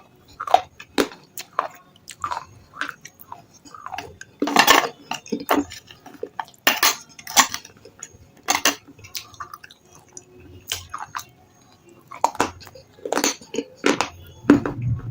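Close-up chewing and crunching of brittle red slate stone chips: irregular sharp crunches, a few loud ones, with quieter chewing between them.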